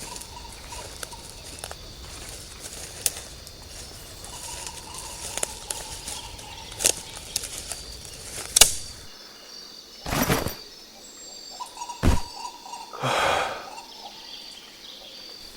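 Jungle ambience: a steady high insect drone with an on-and-off bird call, scattered small snaps, and two louder rustling thumps, about ten seconds in and about three seconds later.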